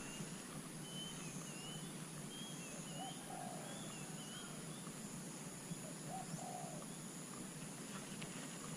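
Quiet outdoor ambience with birds calling: a run of short high chirps in the first half, and a few lower, separate calls later, over a steady faint hiss.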